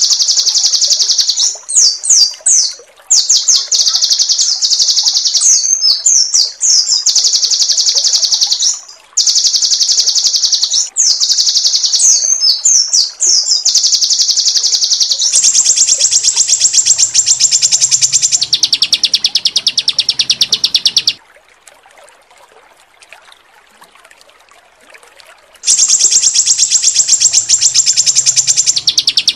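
Songbird masteran recording: rapid, harsh, high-pitched trilling ('tembakan kasar' rough rapid-fire song phrases) in stretches of a few seconds separated by short breaks, with a few quick sweeping notes among them. About two-thirds of the way through the song stops for roughly four seconds, then the same trill resumes.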